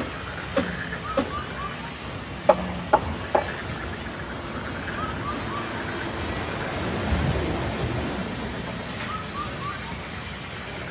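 Band sawmill running, its blade sawing lengthwise through a large log to take off a slab: a steady hiss, with several sharp knocks in the first few seconds.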